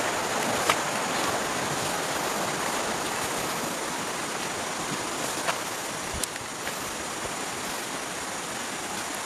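Steady rushing of a fast-flowing stream that slowly grows fainter, with a few faint clicks.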